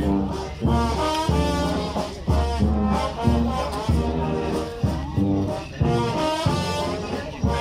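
Brass band music: sustained brass notes over a steady beat of low bass notes.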